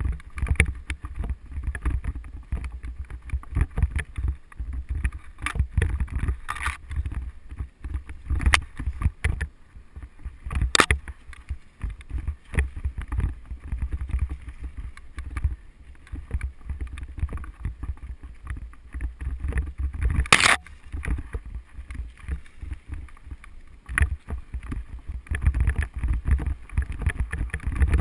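Haibike mountain bike ridden along a sandy forest singletrack, heard through a GoPro: a constant low rumble with frequent knocks and rattles as the bike goes over bumps. There are two sharp clacks, one a little before halfway and one about three quarters of the way through.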